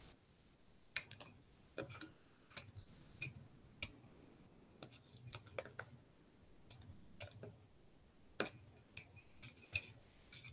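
Faint, scattered small clicks of hands working a piece of adhesive tape around a rubber band on a popsicle-stick model, coming irregularly about once or twice a second.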